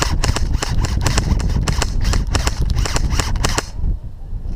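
Airsoft rifle firing a rapid string of sharp snapping shots, about five or six a second, that stops a little before the end.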